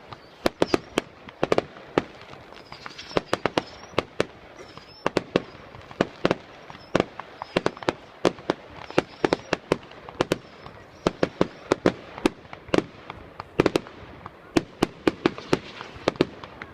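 Fireworks going off in a rapid, irregular barrage of sharp bangs, several a second and often in quick clusters.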